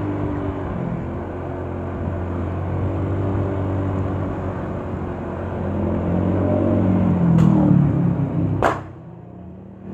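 Motorcycle engine running under way on a wet road, its revs rising near the end. About nine seconds in there is a sharp bang, after which the engine sound falls away: the engine blowing and dying.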